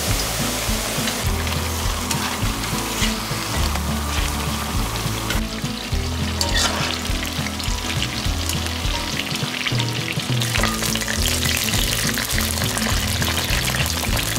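Eggplant strips deep-frying in a wok of hot oil: a steady sizzle, with a few sharp clicks around the middle as a wire spider strainer scoops them out. Soft background music underneath.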